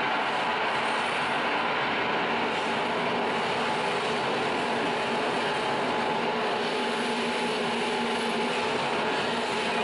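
Experimental electronic noise music: a dense, steady wall of noise with a few faint held tones, played live on effects pedals and electronics.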